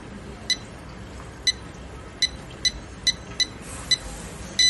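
Short high electronic key beeps from a handheld thermal inkjet printer's touchscreen, about eight of them at an uneven typing pace, as a stylus taps letters on its on-screen keyboard.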